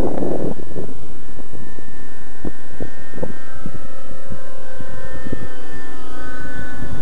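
Thunder Tiger Raptor 50 radio-controlled helicopter in flight, its nitro glow engine and rotors making a steady high whine whose pitch slides around as it flies past. Wind buffets the microphone at the start.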